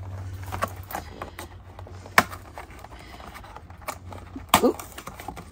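Cardboard advent calendar being handled as a perforated door is pushed open: light rustling with scattered clicks and taps, a sharp tap about two seconds in, and a brief rising-and-falling pitched sound near the end.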